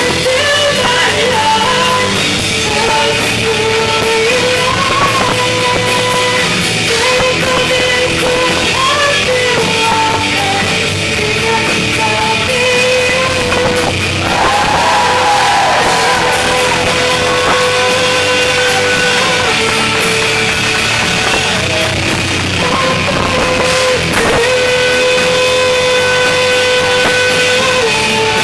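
Loud rock-style song with a singer over a full band, playing steadily.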